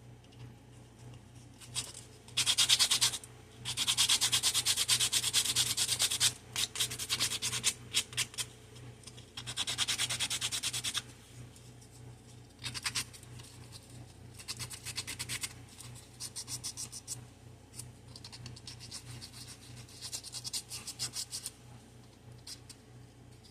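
Sandpaper rubbing across the bottoms of small tic-tac-toe pieces in quick back-and-forth strokes. The sanding comes in spells of a few seconds, loudest in the first half and softer after about 12 seconds.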